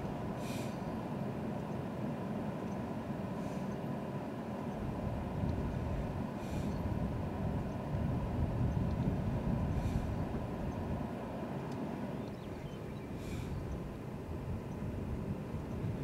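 Steady low rumble, swelling a little in the middle, with a faint short higher sound about every three seconds.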